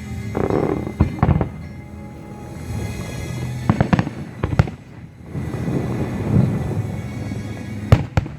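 Fireworks shells bursting with sharp bangs over music: a pair about a second in, a cluster around four seconds, and two more near the end.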